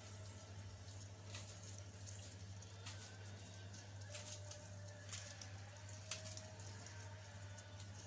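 Faint crackling of liver and spleen frying in oil, with scattered sharp pops over a steady low hum.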